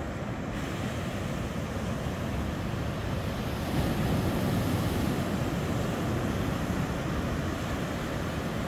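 Surf breaking on a rocky shoreline, a steady wash of waves mixed with wind buffeting the microphone, swelling a little near the middle.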